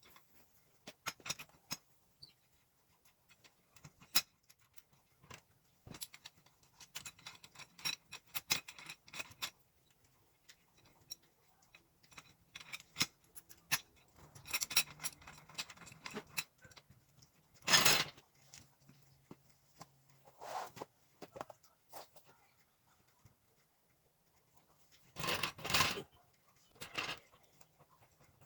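Metal tools clinking and clattering as they are handled, with a louder short burst about two-thirds of the way through and a denser burst of about a second near the end.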